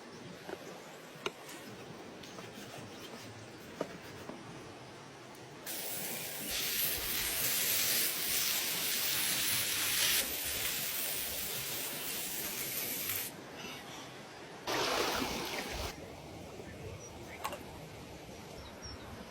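Lamb steak and onions sizzling in a hot pan, a loud hiss that starts abruptly about six seconds in and stops about seven seconds later, then flares once more briefly near fifteen seconds. Small clicks and crackles in between.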